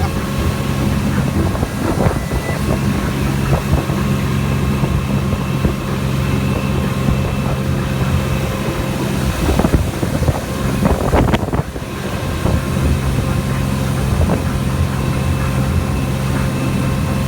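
Engine running with a steady low drone, with wind noise on the microphone.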